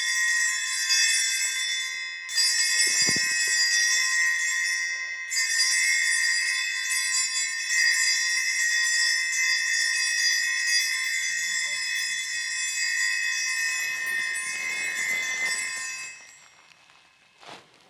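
Altar bells (a cluster of small bells) ringing at the elevation of the consecrated chalice during Mass, marking the consecration. They are rung again about two and five seconds in, and the ringing carries on until it fades out near the end.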